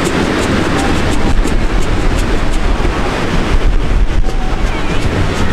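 Wind buffeting the microphone over the steady rush of ocean surf breaking on the beach.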